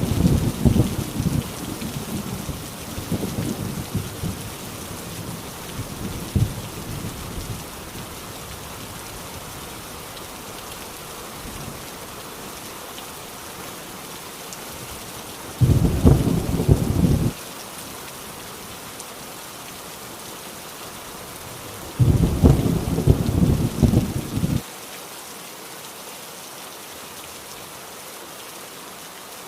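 Heavy rain falling steadily, with thunder rumbling. A rumble dies away over the first several seconds, then two short, loud thunder rolls come around 16 s and 22 s in, each cutting off suddenly.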